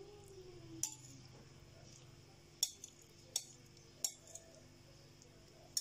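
About five light clinks of a fork against a plate and a non-stick pan, spaced a second or so apart, as fried tomato slices are laid into the pan.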